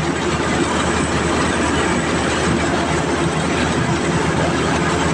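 Rice combine harvester running steadily, giving a loud, even machine noise with no pauses.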